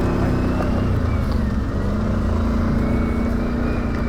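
ATV engine running at a steady, even speed, with a faint high whine above it.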